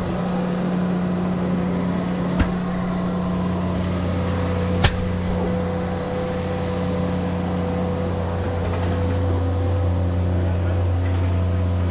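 An engine running steadily with a low, even hum, and two sharp clicks about two and a half and five seconds in.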